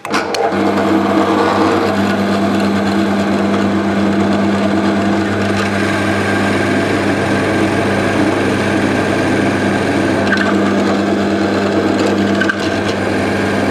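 Bench pillar drill's motor running with a steady hum while a Famag Bormax Forstner bit bores into maple, a continuous cutting rasp over the hum. The sound eases slightly near the end.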